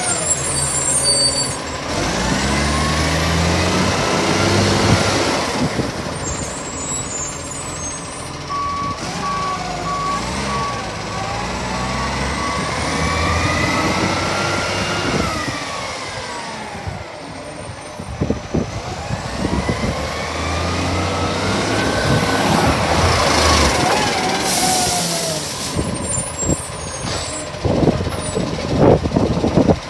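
Garbage truck working: its diesel engine revs up and down about three times, and a reversing beeper sounds for several seconds about a third of the way in. A loud hiss of air comes about two-thirds of the way in, and clattering knocks follow near the end.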